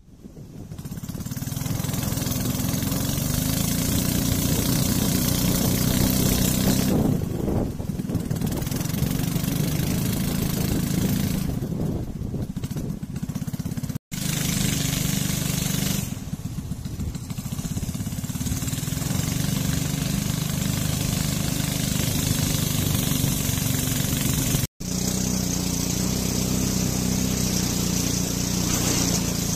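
Small boat's engine running steadily under way, coming up from quiet over the first couple of seconds.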